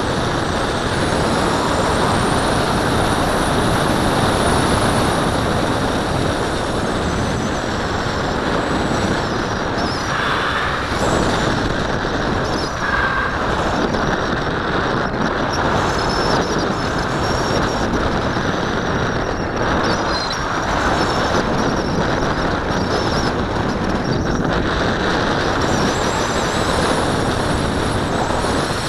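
Wind rushing over the onboard camera of a model glider in flight: a steady, loud roar of air noise, with faint high whistles that drift up and down in pitch.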